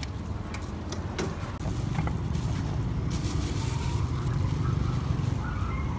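Steady low rumble of street traffic, with a few sharp clicks and clatters.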